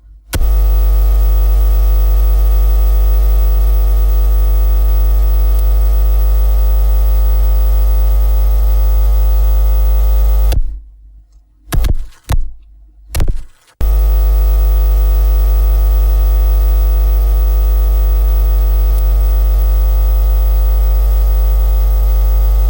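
Loud, steady electrical mains hum with a deep buzzing tone and many overtones. It switches on abruptly, cuts out for a few seconds about halfway through apart from two or three brief blasts, then comes back on.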